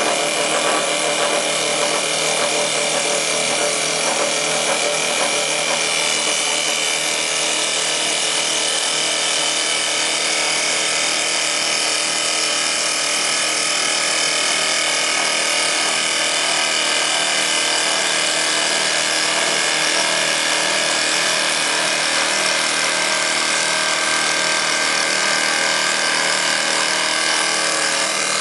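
Automatic CNC wood lathe running, its air-cooled spindle giving a steady whine over the continuous noise of the cutter shaping a turning wooden blank.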